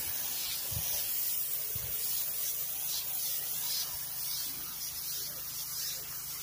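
Pressure washer spray gun spraying a pre-treatment cleaning solution onto a concrete patio: a steady hiss of spray with a low, even hum underneath.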